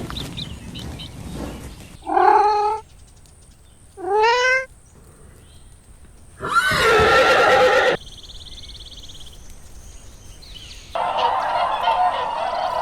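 A series of farm animal calls: two short wavering calls, then a louder, harsher call about six and a half seconds in, and from about eleven seconds in a dense, continuous chorus of calls.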